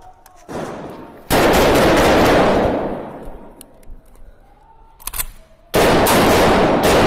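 Two long bursts of very close gunfire, the first starting about a second in and the second near the end, each holding at full loudness for over a second before trailing off.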